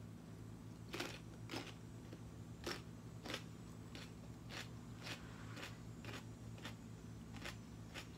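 Chewing a mouthful of fresh celery topped with chicken salad, with sharp crunches about twice a second. A steady low hum sits underneath.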